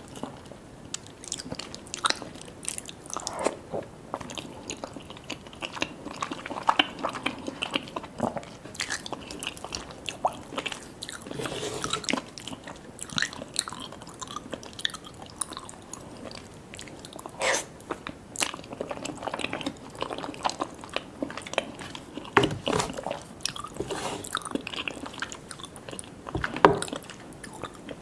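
Close-up eating sounds of cheese lasagna and butter garlic toast: irregular chewing and biting with crisp crunches, a few louder bites standing out along the way.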